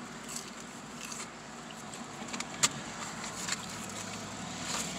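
Eating fried chicken out of a paper box inside a car: a few short sharp crinkles and crunches, the loudest about halfway through, over a steady car-cabin hum.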